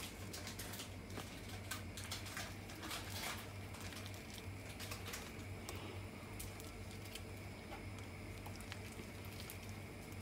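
Faint, scattered soft taps and squishes as cut nendran banana pieces are picked off a steel chopping board and dropped into wheat-flour batter, over a low steady hum.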